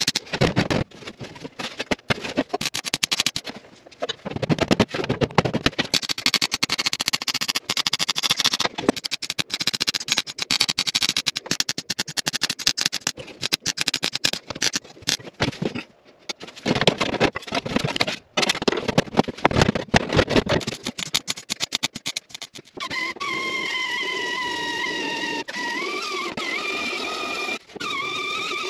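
MIG welder stitch-welding a sheet-steel floor panel: a crackling arc in bursts of a few seconds with short pauses between welds. About 23 seconds in, an angle grinder starts and runs steadily, its whine wavering as it grinds down the fresh welds.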